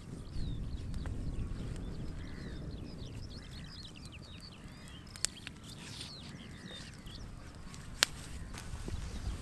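A flock of birds calling in many quick short chirps over a low wind rumble, with two sharp pops from the campfire, about five and eight seconds in.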